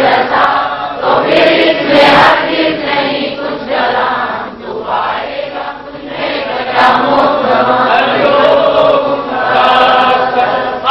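Group of voices chanting a devotional verse together in a slow sung recitation, with a short break between lines about halfway through.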